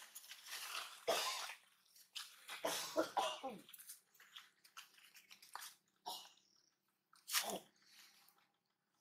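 Young long-tailed macaques calling: a baby's cry about three seconds in, one call whose pitch rises and then falls, among several short hoarse bursts, the loudest about a second in and again near the end.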